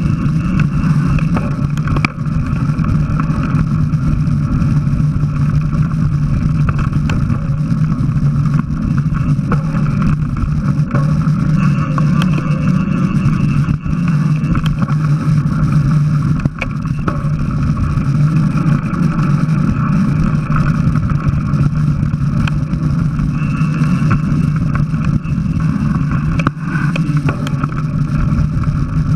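Steady, loud riding noise of a mountain bike on a dirt trail, picked up by an action camera on the bike or helmet: wind and the rumble of tyres and frame over the ground, with a few brief knocks from bumps.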